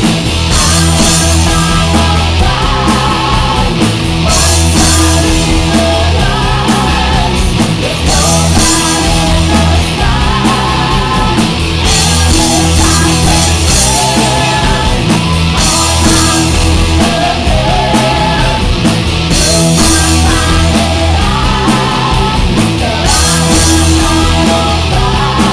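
Live rock band playing loud and steady: distorted electric guitars, electric bass and a drum kit, with cymbals crashing in stretches of a couple of seconds that come and go.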